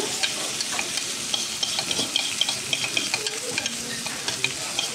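Okonomiyaki batter and cabbage sizzling on a hot teppan griddle, with spoons scraping and clinking against the mixing bowls as the last of the batter is scooped out.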